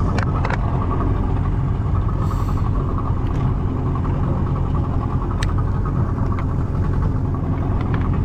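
Boat engine running steadily, with a few short clicks or knocks over it.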